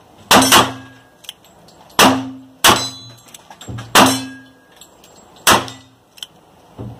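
Ruger Vaquero single-action revolver firing a string of about six loud shots, spaced from a fraction of a second to about a second and a half apart, each with a brief low ring after it. A few lighter clicks follow near the end.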